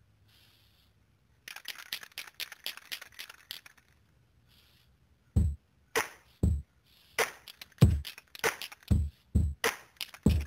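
Hip-hop backing track starting up: after a short stretch of dense crackling clicks, a drum beat comes in about five seconds in, with heavy kick drums and sharp hits between them.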